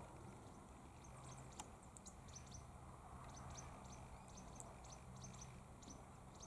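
Near silence: faint background bird chirps, many short high-pitched notes scattered throughout, over a faint steady low hum.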